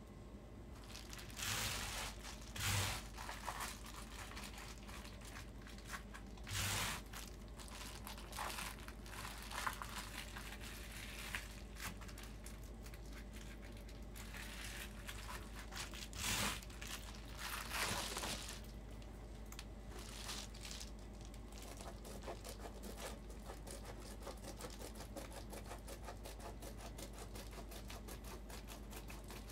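Reflectix foil-faced bubble insulation crinkling and rustling as it is pressed and worked into a window track by hand, with a run of louder crackles in the first twenty seconds and fainter rustling after.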